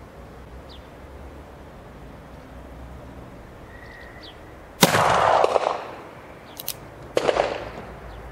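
Two shots about two and a half seconds apart from an original 1863 Remington New Model Army cap-and-ball revolver. It is firing a 24-grain charge of 2F Swiss black powder in replica combustible cartridges, and each report echoes off briefly. A pair of sharp metallic clicks falls between the shots as the single-action hammer is cocked.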